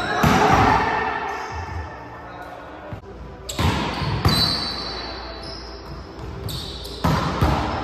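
Volleyball rally on a hardwood gym floor. Several sharp smacks of hands hitting the ball, about a second in, around the middle and near the end, each echoing in the hall. Short sneaker squeaks on the floor come between the hits.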